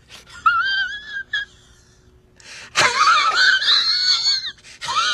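A man's high, quavering falsetto whine in several broken bursts. The longest and loudest runs from about halfway to near the end.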